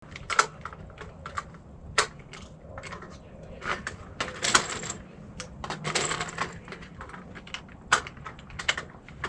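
Irregular small metallic clicks and clinks, with a few sharper knocks, from rifle gear and ammunition being handled.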